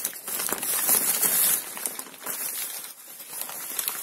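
Paper wrapping crinkling and rustling as it is unfolded by hand from around a potted plant, loudest about a second in.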